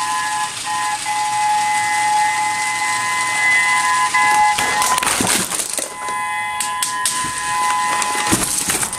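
Electronic warning-siren tone played through a homemade K'nex speaker array with paper-cup horns: a steady chord of high tones. About halfway through a burst of clattering and rattling breaks across it as the model topples, and a thump comes near the end while the tone keeps sounding.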